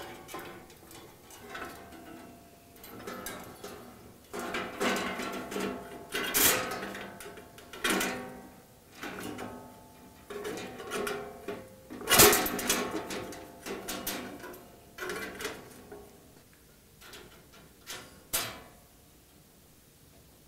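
A steel bandsaw blade is handled and fed around the guides and onto the saw's wheels. It clatters and knocks against the metal parts, and several knocks leave a short metallic ring. The loudest knock comes about halfway through, and the handling grows quieter near the end.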